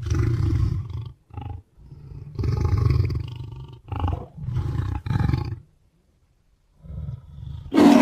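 AI-generated lion roars: a run of deep calls of varying length, with about a second of silence late on and a louder roar starting at the very end.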